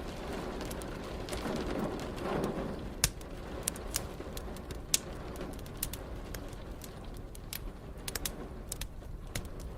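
Wood fire crackling with scattered sharp pops, two louder ones about three and five seconds in, over a steady hiss of rain. A low rumble swells and fades in the first few seconds.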